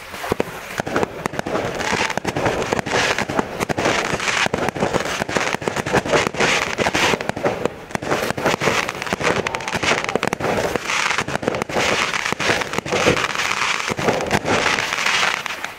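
Fireworks going off: a dense, continuous crackling with many sharp bangs, cutting off suddenly at the end.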